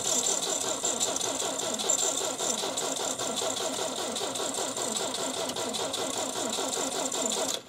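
Willys Jeep engine being cranked over by its starter, a steady rhythmic chugging of several pulses a second, as a test start after the loose battery shorted the wiring. It cuts off suddenly near the end.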